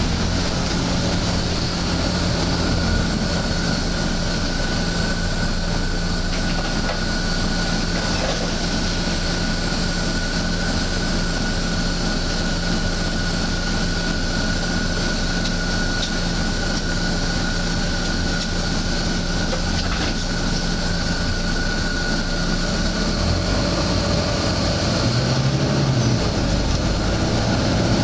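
Volvo B9TL double-decker bus on the move: its six-cylinder diesel and drivetrain running steadily under road noise, with a faint steady high whine throughout.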